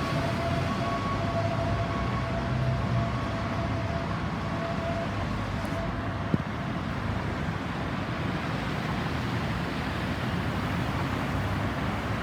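Steady road traffic noise. A faint, steady high tone fades out over the first five seconds, and there is a single sharp click about six seconds in.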